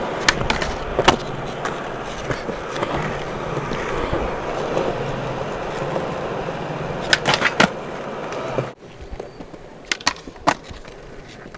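Skateboard wheels rolling steadily over concrete, with sharp clacks of the board striking the ground just after the start and a quick cluster of them about seven seconds in. Nearly nine seconds in the sound drops away suddenly to a quieter roll, with two more clacks near the end.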